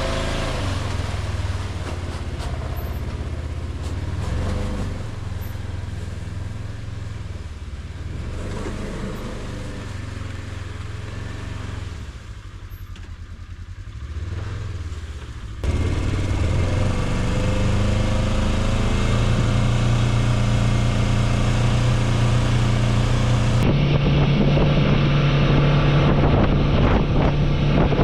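Engine of a Ranger utility vehicle running as it is driven, a steady hum that jumps suddenly louder about halfway through and shifts pitch again near the end.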